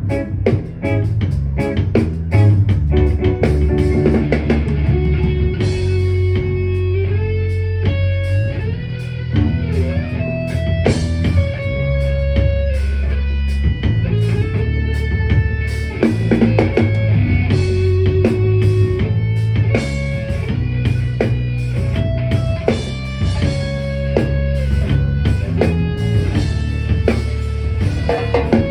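Live band playing an instrumental passage: electric guitar playing held, sliding melody notes over bass guitar and a drum kit.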